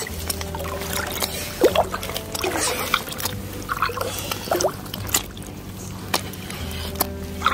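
Water splashing and sloshing at the surface as a hooked pumpkinseed sunfish struggles on the line beside a float tube, with sharp clicks and splashes scattered through.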